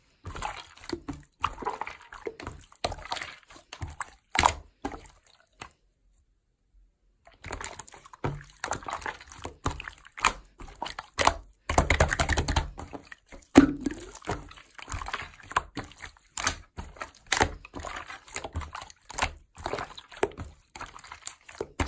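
Slime being squeezed and worked by hand: a run of wet clicks, pops and squelches. It stops for about a second and a half around six seconds in, and is denser and louder around twelve seconds in.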